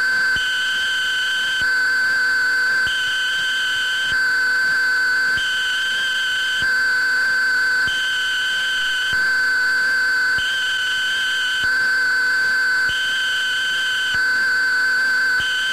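Steady, high-pitched electronic whine made of several held tones, with a higher beep and some top tones switching on and off in turn about every second and a quarter, giving a slow, even two-step pulse.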